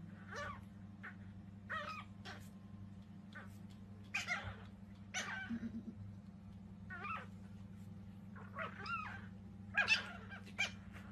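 Chihuahua puppies yapping and squealing at each other in play: short, high-pitched yips coming irregularly, the loudest cluster near the end, over a steady low hum.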